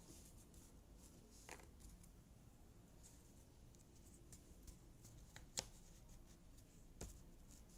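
Faint clicks and light rustling of cardboard jigsaw puzzle pieces being handled and set down, with the sharpest click about five and a half seconds in and another near seven seconds.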